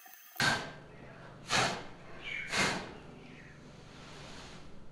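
Three short puffs of breath, about a second apart, blowing sanding dust off a wooden reed organ reed pan.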